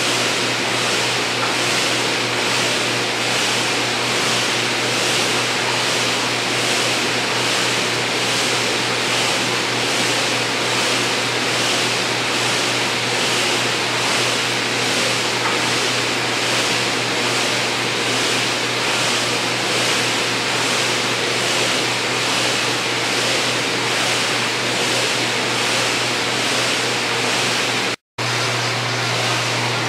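Kayak ergometer's flywheel whirring steadily under continuous paddling, the whoosh swelling in a regular rhythm with each paddle stroke over a low steady hum. The sound drops out for an instant near the end.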